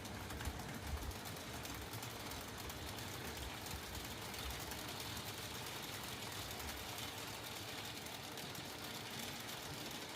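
HO-scale model electric locomotive running steadily along the layout's track, its small electric motor and wheels on the rails giving a continuous mechanical running sound.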